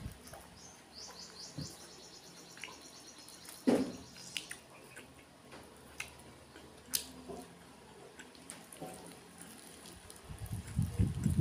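Quiet, scattered soft clicks and wet ticks of bare fingers tearing meat off a cooked chicken piece and of mouth sounds while eating, with one louder tap a little under four seconds in. A quick run of high chirps lasts a couple of seconds about a second in.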